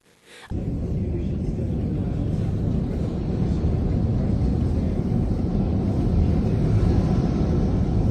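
Strong blizzard wind buffeting the microphone: a steady low rumble that cuts in about half a second in.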